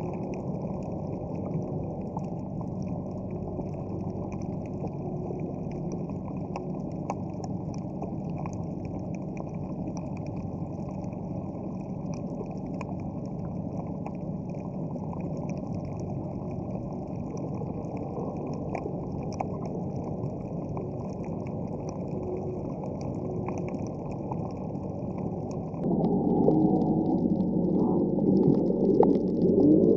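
Underwater ambience picked up by a submerged camera: a steady low drone with scattered small clicks. About 26 seconds in it turns louder, with wavering tones.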